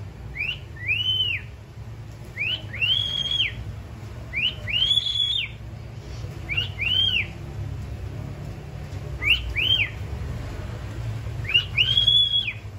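Cockatiel whistling a repeated phrase six times, about every two seconds: a short rising note followed by a longer clear whistle that climbs, holds and falls away.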